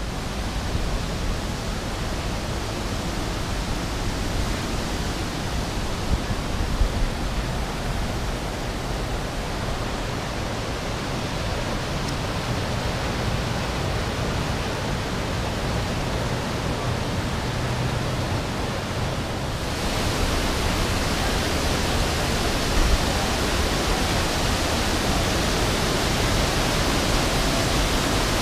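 Waterfalls and a stream cascading through a rock gorge: a steady rushing of water that suddenly grows louder and brighter about two-thirds of the way through.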